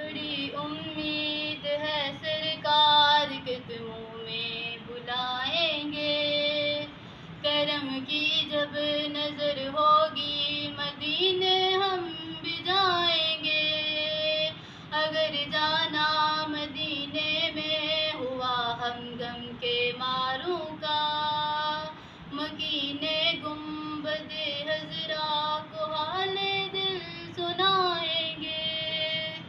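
A young female voice singing a naat solo, a slow melodic line of long held notes with wavering ornaments.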